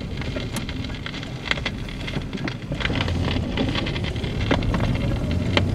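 Vinyl record surface noise from a 12-volt Crosley portable record player: hiss with irregular crackles and pops from a worn record between songs, over a low rumble inside the car that grows from about halfway.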